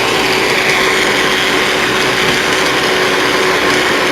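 Small personal blender with a bladed lid running steadily and loudly, its little motor blending a protein shake.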